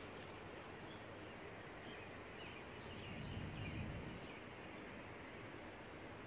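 Outdoor ambience ahead of a storm: a steady wind hiss with faint bird chirps, and a low rumble that swells about three seconds in and fades over the next second and a half.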